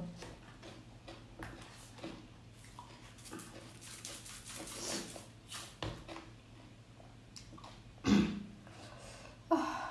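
Eating sounds: scattered chewing and wet mouth noises with small clicks, and one louder short sound about eight seconds in.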